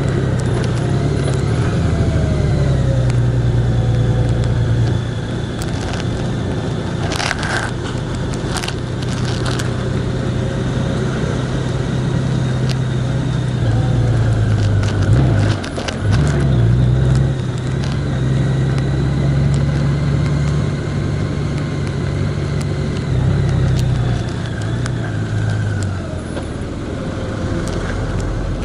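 A road vehicle's engine running steadily while driving, with tyre and road noise. Its pitch shifts a few times, and it dips and changes briefly about halfway through.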